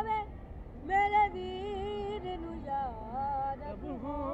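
A boy's voice reciting a nauha, a Shia mourning lament, sung solo in long, wavering held notes. He breaks off briefly, then takes up the next phrase about a second in.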